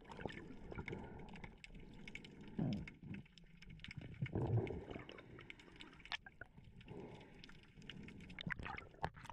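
Underwater sound picked up by a camera in its housing: a faint crackle of many small clicks, with a few muffled low gurgles, about two and a half and four and a half seconds in.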